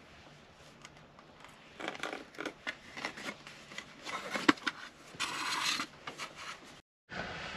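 Handling noise as hands work with an electric cable: scattered scraping, rustling and light clicks, with a sharp click about four and a half seconds in and a longer scrape just after five seconds.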